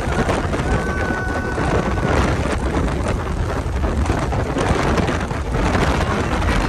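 Loud, steady rush of wind buffeting the microphone and spray hissing from the wake of a jet ski running at speed.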